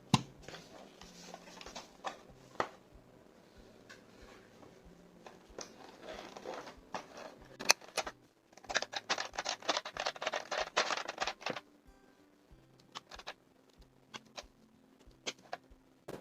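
Plastic clicks and snaps of mechanical keyboard switches and keycaps being handled on a hot-swap Akko 5075S keyboard. Scattered single clicks give way to a quick run of many clicks about nine seconds in.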